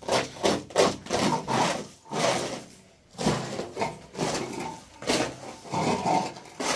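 Repeated rasping scrapes by hand, about two strokes a second, each a short rough rub that starts and stops.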